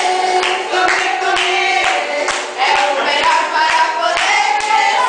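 Singing voices with rhythmic hand-clapping in time, about two claps a second.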